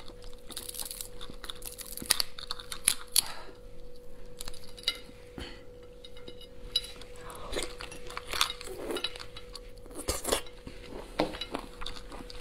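Raw lobster shell being pulled apart and peeled by hand: irregular cracks, crackles and small clicks with rustling in between. A faint steady hum runs underneath.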